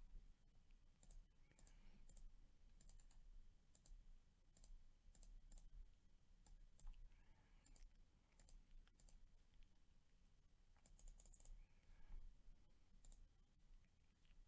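Faint, scattered clicks of a computer mouse and keyboard over near silence.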